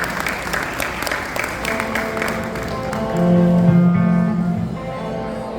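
Audience applause that fades over the first couple of seconds as a small instrumental ensemble begins the next piece with held, pitched notes. The loudest part is a low held note about three seconds in, with higher notes over it.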